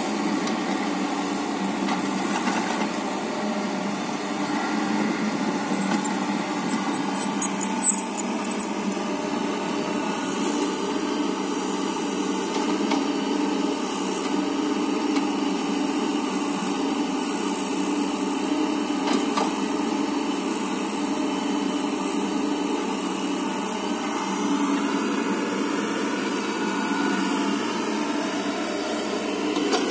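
Bulldozer's diesel engine running steadily under work, with a single sharp click or knock about eight seconds in.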